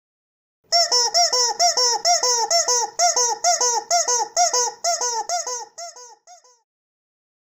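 Yellow rubber chicken toy squeezed over and over, giving a quick run of short squeaks, about three or four a second, each rising then falling in pitch. They grow fainter and sparser near the end, then stop.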